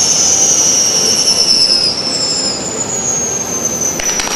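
Ground-level fireworks fountains and spinning fireworks wheels hissing, with high shrill whistles that slowly fall in pitch. The sound eases a little about two seconds in, and a few sharp crackles come near the end.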